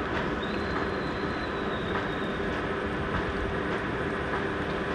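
An engine running steadily at an even pitch: a low hum with a few steady tones over it.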